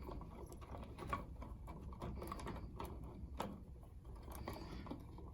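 Faint scattered clicks and rubbing as electrical wires are handled and the white neutral wires are capped off with a wire nut in a wall switch box.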